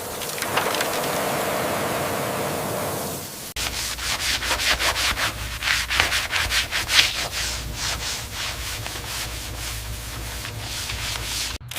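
Rhythmic rubbing strokes of hand sanding or scrubbing on a surface, about three a second, following a steady hiss that cuts off about three and a half seconds in.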